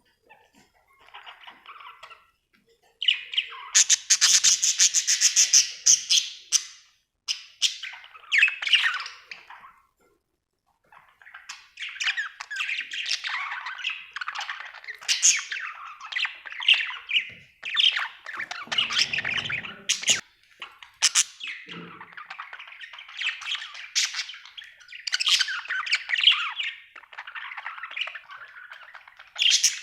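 Budgerigar chirping and chattering: a loud, rapidly pulsed trill a few seconds in, a short pause, then near-continuous warbling chatter.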